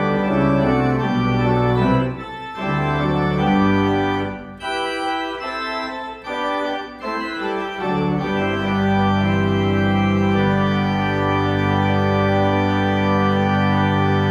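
Church organ playing on manuals and pedals: a series of changing chords, then from about eight seconds in one long held closing chord over a deep pedal bass.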